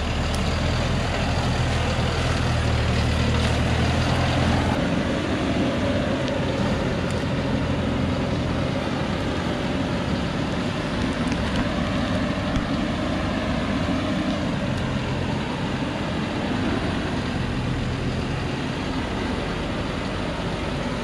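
Diesel truck loaded with acacia logs, its engine running under load as it drives up a muddy dirt track. The engine note changes about five seconds in, then rises and falls as it goes.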